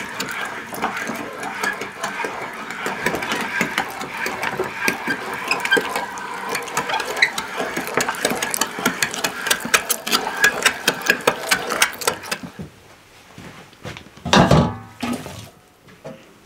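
Hand-cranked metal meat grinder turning as meat is fed through it, with a rapid clicking rattle from the crank and screw. It stops about twelve seconds in. A couple of seconds later comes a single loud thud.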